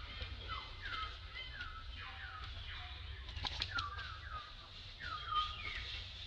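An animal calling over and over: short whistled notes that each slide down in pitch, about two a second. A few sharp clicks or rustles come near the middle.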